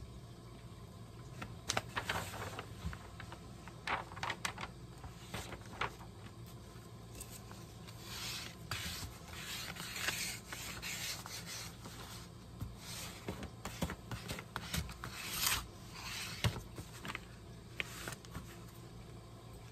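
Hands rubbing and smoothing a sheet of paper over a board, giving dry rustling and scraping strokes: a few separate strokes at first, then a denser run of rubbing in the middle.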